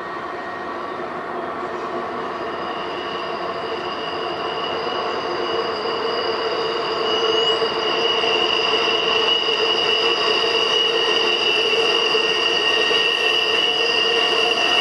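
A train led by two GE AC4400CW diesel locomotives approaching and growing steadily louder. A steady, high-pitched wheel squeal rings over the running noise as the wheels take the curve.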